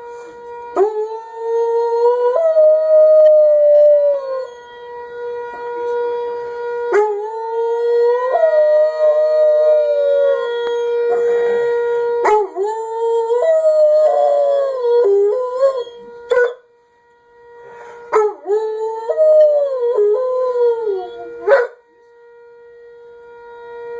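A black Labrador retriever howling along with a nuclear warning siren: four long howls, each rising and then sliding down in pitch, over the siren's steady tone.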